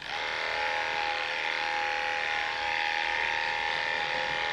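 Cordless electric grooming clipper switched on and running with a steady buzzing hum as it cuts through a dog's coat. It starts abruptly right at the beginning.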